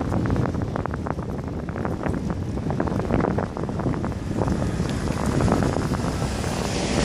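Wind rumbling over the microphone of a camera mounted on a moving road bike, with frequent small knocks and rattles from road vibration through the mount. A hiss grows louder near the end.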